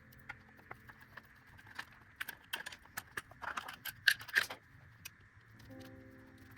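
Metal clicks and clinks of hand tools and small parts being worked on a motorcycle. A quick run of sharp clicks builds up about two seconds in, and the loudest clinks come near four seconds.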